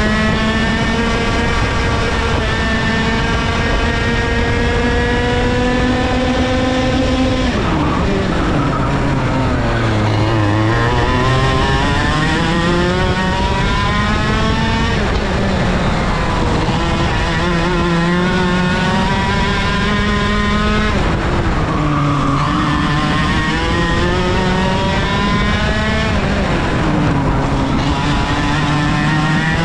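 IAME KA100 100cc single-cylinder two-stroke kart engine running at racing speed. The revs climb long and steadily along the straights, then fall sharply as the kart slows for a corner and climb again, four times over.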